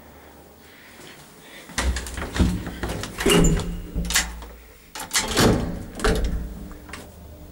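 Old Schindler lift's doors closing: a run of clattering knocks and bangs over about five seconds, starting about two seconds in, with a low steady hum underneath.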